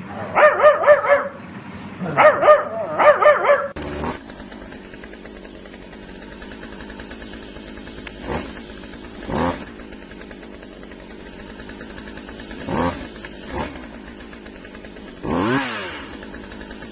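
A dog barks and yelps in two quick, high-pitched, wavering runs. About four seconds in, the sound changes abruptly to a steady hum with a few short, faint sounds.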